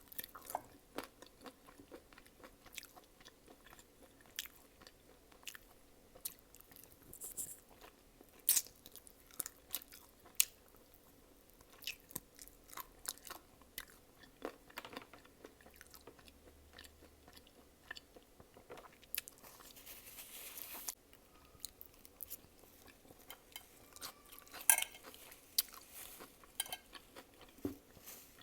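Close-miked eating: chewing with wet mouth smacks and a string of short, sharp clicks. About two-thirds of the way through there is a hiss lasting about two seconds that cuts off suddenly.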